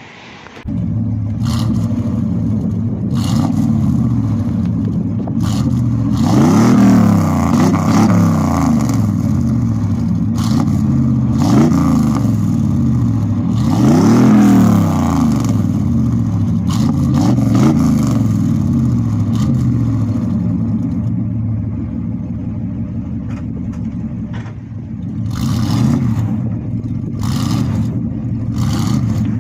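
GMC Sierra ST pickup's engine running through its exhaust, starting about a second in and blipped up in revs about five times, each rev rising and falling back to a steady idle.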